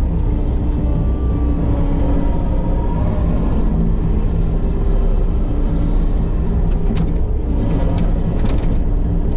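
Case TV450 compact track loader's diesel engine running steadily under load, with a few sharp knocks about two-thirds of the way through.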